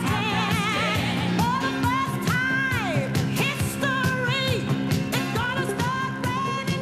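Recorded pop song with a solo singer, played over a hall's loudspeakers and heard through a worn VHS recording: long held notes with wide vibrato, one sliding steeply down about two and a half seconds in, over a steady backing track.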